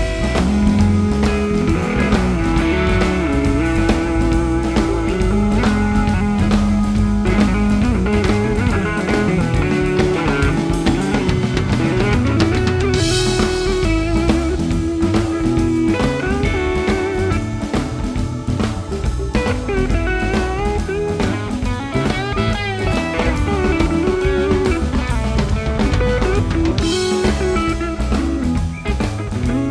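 Background music: blues-rock with electric guitar and a steady drum-kit beat.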